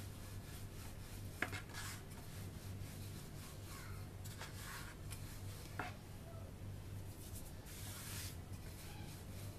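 Wooden rolling pin rolling pita dough out on a floured wooden board: soft rubbing strokes with a couple of light knocks, over a low steady hum.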